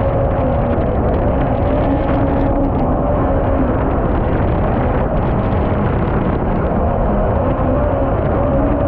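MotoJet mini jet boat's Yamaha MR-1 1.1-litre four-stroke engine and jet drive running steadily at speed, a held engine note over loud rushing water and wind.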